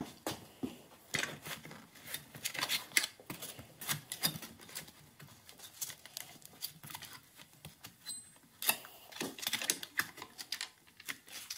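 Irregular light metallic clicks and knocks of drum-brake parts being fitted by hand: brake shoes, springs and a wheel cylinder being put together and worked into place with a lever. The clicks come thickest near the end.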